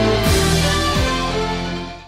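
Closing theme music of a TV news programme, sustained notes with a couple of falling low glides, fading out near the end.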